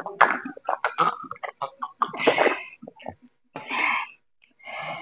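A man gulping water from a glass, then coughing several times.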